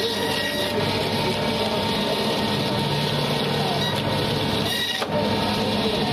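Electric band saw running steadily as its blade slices through a large katla carp, cutting the fish into steaks through scales and backbone. The sound breaks off very briefly about five seconds in.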